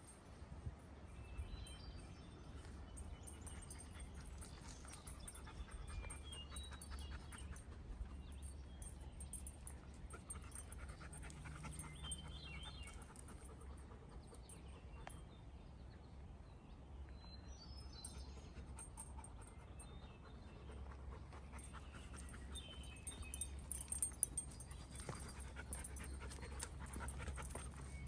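A dog panting, quiet and fairly even throughout.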